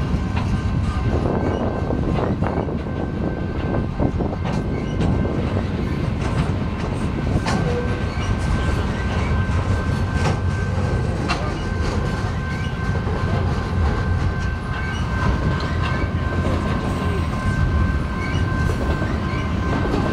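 Freight train of pipe-loaded flatcars rolling past: a steady heavy rumble of steel wheels on rail with scattered clicks and clanks, and two steady high tones above it.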